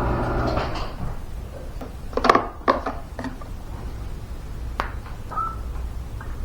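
Electric garage door opener motor running, stopping just under a second in as the door is raised a crack. Then a few sharp knocks and clicks of things being handled.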